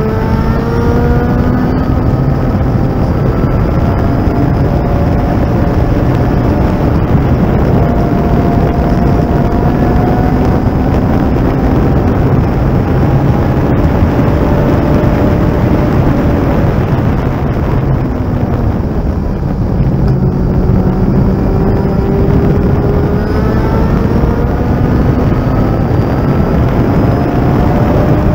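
Thunder Roadster race car's engine running hard at racing speed, heard through an onboard camera with heavy wind and road noise; its pitch climbs in long rises and drops back between them, and it eases off briefly about two-thirds of the way in before pulling hard again.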